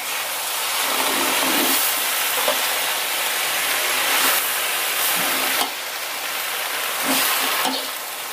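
Turi flowers stir-frying in an aluminium wok: a steady sizzle, broken a few times by the metal spatula scraping and turning them.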